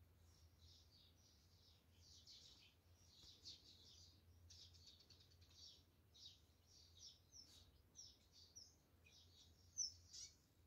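Faint twittering of small birds, many short chirps in quick clusters, with one sharper, louder sound near the end, over a low steady hum.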